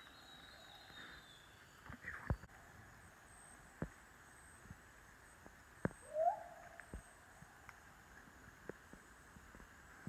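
Faint forest background with a few soft knocks and taps, and one short, low call about six seconds in that rises and then falls.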